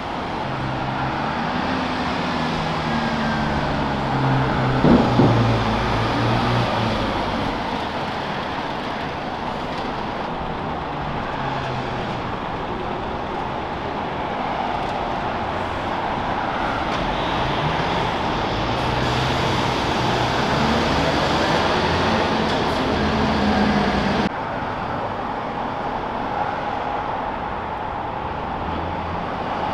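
City street traffic with heavy truck engines running past, their note rising and falling as they pull away, and a brief louder burst about five seconds in.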